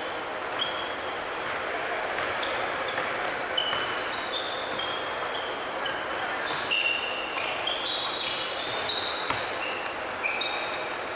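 Basketball game sounds: sneakers squeaking in many short chirps on a hardwood gym floor, with the thud of the ball bouncing now and then.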